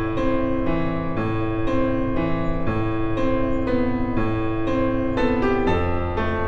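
Piano music playing a slow, steady pattern of sustained chords over a low bass note.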